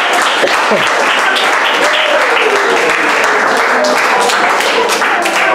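Small audience clapping and cheering at the end of a sung number, with voices calling out over the steady clapping.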